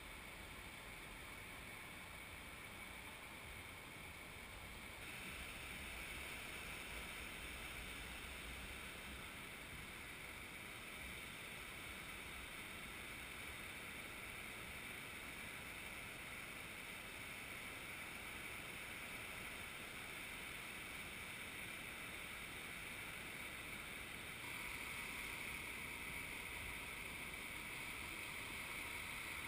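Faint, steady wash of ocean surf with a low rumble of wind on the microphone, stepping slightly louder about five seconds in and again near the end.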